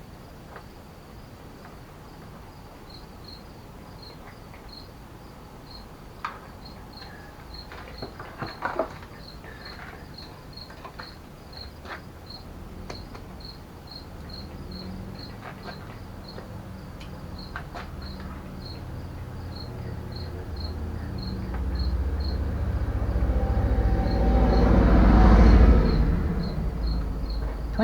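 A cricket chirping steadily, about three short high chirps a second. Behind it a low rumble builds slowly, like a passing vehicle, and is loudest near the end, with a few light handling clicks partway through.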